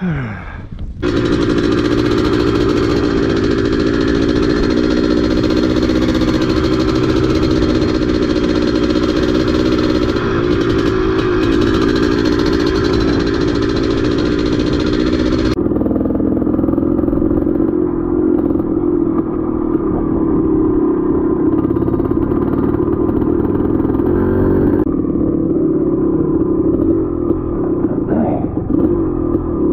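Dirt bike engine running as the bike is ridden, its note fairly steady. The sound dips and falls in pitch briefly about a second in, and changes abruptly about halfway through and again near the end.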